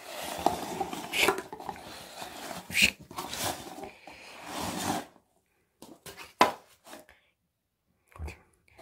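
Paper cups being slid around on a wooden floor as they are shuffled, a scraping rustle that stops after about five seconds, followed by a few light knocks as cups are set down, the sharpest about six and a half seconds in.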